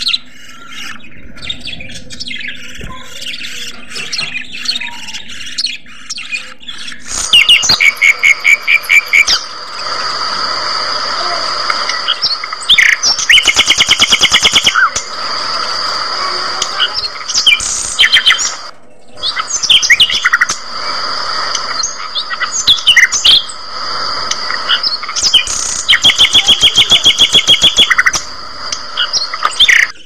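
A flock of budgerigars chirping and chattering. Quieter for the first few seconds, then louder, with a high steady whistle and several fast runs of rapidly repeated chirps.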